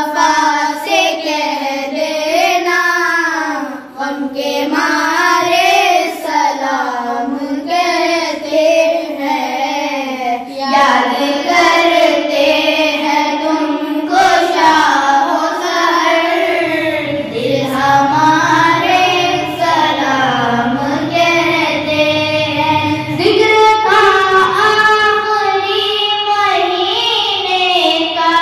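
A boy singing a salam, an Urdu devotional poem of greeting to the Prophet, into a microphone: a single voice in long, gliding, ornamented phrases.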